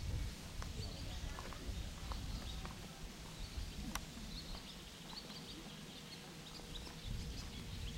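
Outdoor ambience: a low, uneven rumble with faint, scattered bird chirps and a few light clicks.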